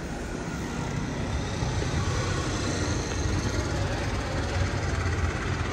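Steady city street traffic noise, an even low hum of passing cars with no distinct events.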